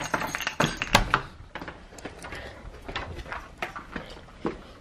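Irregular knocks and clicks of movement indoors, like a door being handled and footsteps: a cluster of loud ones in the first second or so, then scattered quieter ones.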